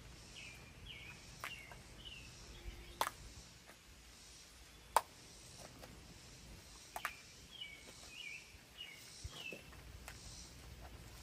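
Faint outdoor background with small birds chirping in short runs of calls, one group near the start and another around eight seconds in. A few sharp clicks come through, the loudest about five seconds in.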